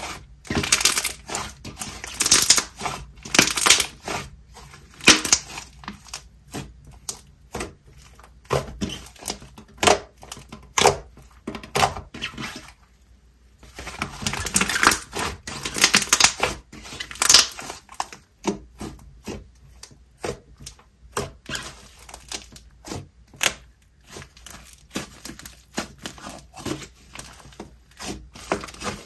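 Thick yellow jelly slime with snow mixed in being squished, stretched and pressed by hand, giving a run of irregular sticky crackles and small pops, with a short quieter pause near the middle.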